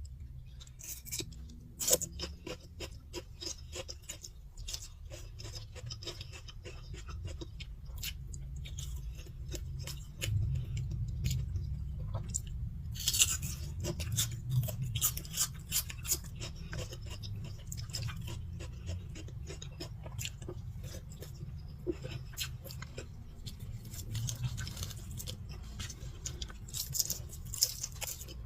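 Close-miked chewing of food: a steady stream of small clicks, crackles and wet mouth sounds as someone eats.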